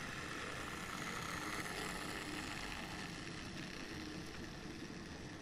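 N-scale Minitrix V160 model locomotives in double traction, their small electric motors whirring and wheels rolling on the track as the pair and their freight wagons run past close by. The sound swells to its loudest about two seconds in and eases slightly after, with a few faint clicks from the wheels on the rails.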